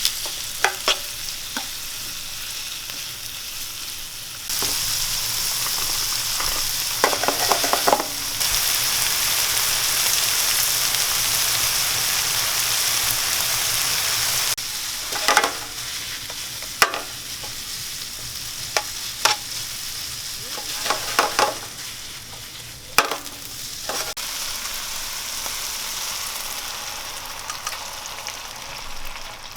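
Food sizzling and frying in a pan while it is stirred, with sharp clicks and knocks of the utensil against the pan. The sizzle gets louder about four seconds in and drops back about ten seconds later.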